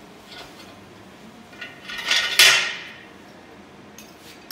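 A loud rasping scrape-and-clatter of metal, building up and peaking a little over two seconds in, then dying away within about a second, as parts are handled at an engine on a stand.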